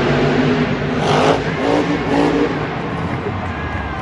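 Vehicle engine revving, its pitch stepping and gliding up and down, with a short burst of hiss about a second in.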